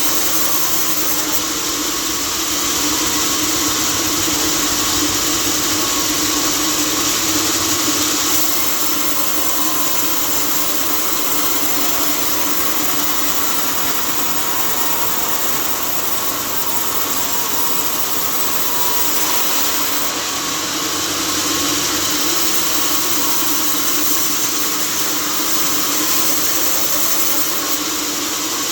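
Sawmill saw machinery running steadily, a constant loud machine noise with a steady hum and hiss.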